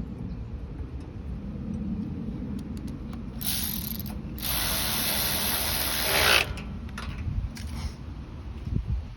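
Hand ratchet wrench clicking in two runs, a short one and a longer one, as the bolts holding the carburetor are run in.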